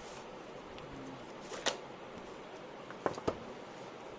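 Cardboard phone box and plastic-wrapped phone being handled: a few sharp clicks and taps, one about one and a half seconds in and two close together near three seconds, over a steady faint hiss.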